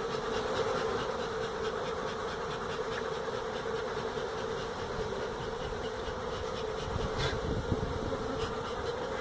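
Steady hum of a mass of honey bees buzzing around an opened hive during a cut-out.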